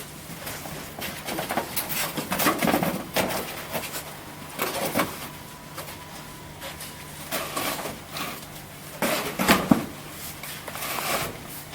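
Cardboard display base being handled, its bottom flaps folded and pushed in: irregular scrapes, creaks and knocks of cardboard in several bursts.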